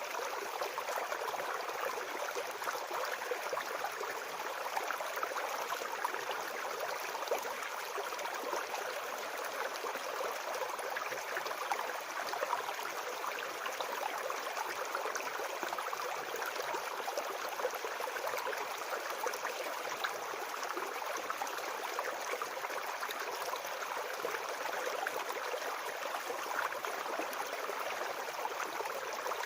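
Shallow forest brook babbling and gurgling steadily over stones.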